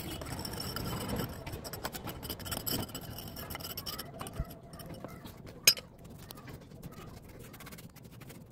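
A steel rod scraping through moulding sand and clinking against a freshly sand-cast metal part, dense scraping at first, then sparser ticks, with one sharp metallic clink a little past the middle.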